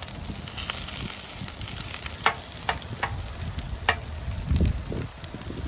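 Achiote-marinated pork frying in lard on a large steel disco griddle, sizzling steadily. Four sharp clicks come a little past halfway as a knife point strikes the griddle while piercing whole chiles, and there is a low thump near the end.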